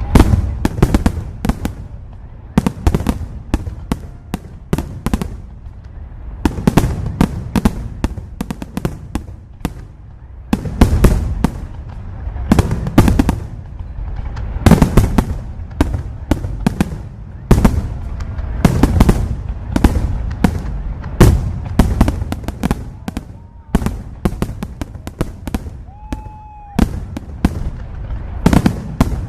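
Fireworks display: a continuous barrage of bangs and crackles from aerial fireworks, coming in dense clusters. A brief steady tone sounds a little before the end.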